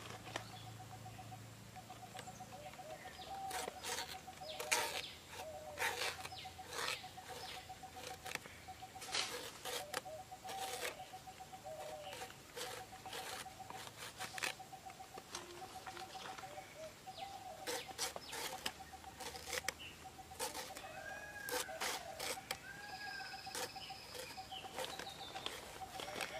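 A banana flower being shaved against an upright blade: irregular crisp cutting strokes. Behind it are a steady rapid trill, clucking chickens and other bird calls.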